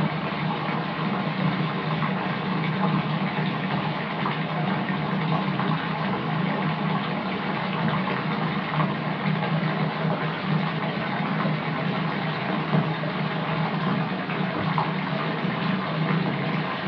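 Water running steadily from a tap into a filling bathtub, an even rushing sound with no breaks.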